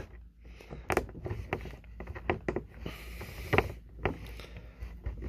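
Scattered light clicks and taps of a plastic action figure being handled and shifted about on a tabletop, about eight small knocks at irregular intervals.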